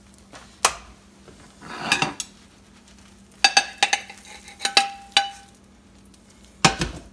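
A nonstick skillet clinking and scraping against a ceramic plate as an omelette is slid out of it, a run of clinks in the middle, one leaving a short ringing tone. Near the end a heavier knock as the pan is set down on the glass-top stove.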